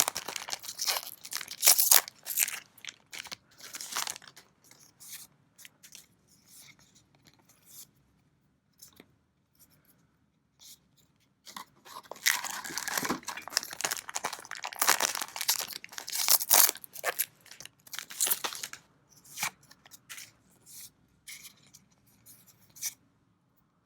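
Trading-card booster pack wrappers being torn open and crinkled, with cards handled and shuffled. There are two busy stretches of tearing and rustling, at the start and again about halfway, with quieter handling between.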